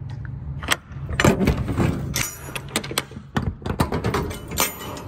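Rear swing doors of a CIMC semi-trailer being unlatched and opened: a run of metal clanks and clicks from the latch handles and lock rods. A steady low engine hum runs underneath.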